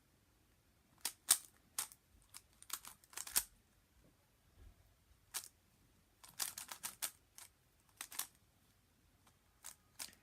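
Zcube M speed cube (3x3 Rubik's-type puzzle) being turned by hand: quick plastic clicks and clacks in irregular flurries, with short pauses between them while the solver looks for the next move.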